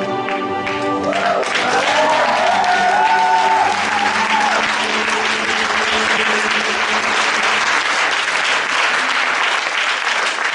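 Audience applauding as the performance music stops about a second in, with voices calling out over the clapping for the next few seconds.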